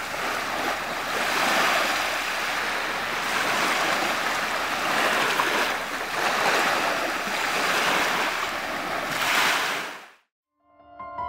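Sea waves surging and washing in, a steady rush of surf that swells and eases every couple of seconds. It cuts off abruptly near the end, and piano music begins.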